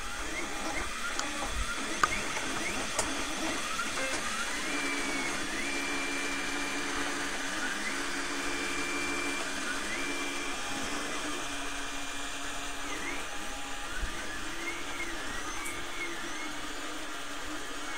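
XYZprinting da Vinci Mini 3D printer printing. Its motors whine in short rising and falling glides as the print head moves, over a steady hum and hiss.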